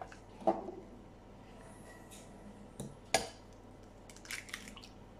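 A hen's egg cracked on the rim of a glass bowl: two sharp knocks, about half a second in and again around three seconds, then light crackling of the shell being pulled apart over the bowl.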